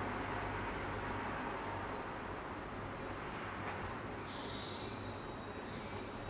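Ambient outdoor background: a steady low hum with faint, thin, high bird calls over it, and a quick cluster of short chirps about five and a half seconds in.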